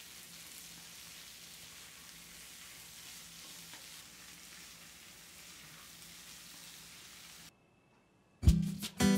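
Cauliflower florets and potato cubes sizzling steadily in hot oil in a pan as they are stir-fried; the sizzle cuts off suddenly. Near the end, loud music with sharp percussion hits starts.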